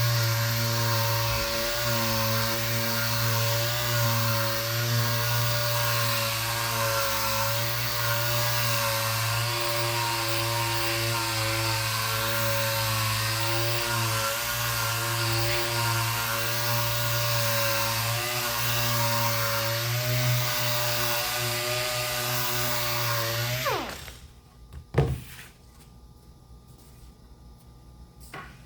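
Electric power sander running steadily while sanding wood filler on a wooden surface, with a constant motor hum under the hiss of abrasive on wood. About 24 seconds in it is switched off and the motor winds down with a falling pitch, followed by a couple of sharp knocks.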